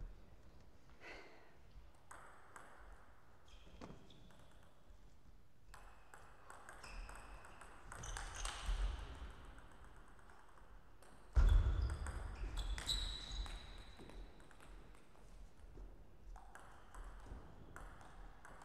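Table tennis ball clicking off bats and table in scattered hits and bounces, some with a short high ring. A heavy low thud, the loudest sound, comes about two-thirds of the way through.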